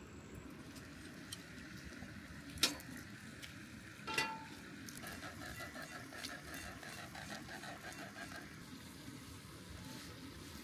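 Sooty grunter frying in a pan over a campfire, a steady low sizzle. Two sharp knocks about two and a half and four seconds in, the second a ringing metallic clink, and a faint rapid pulsing trill from about five to eight seconds in.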